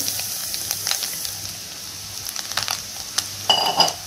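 Puffed rice poured from a bowl into a hot, oiled frying pan of egg, onion and green chilli: a rustling pour with sizzling and crackling, loudest at first and settling to a quieter crackle. A short, louder clatter with a brief ring comes near the end.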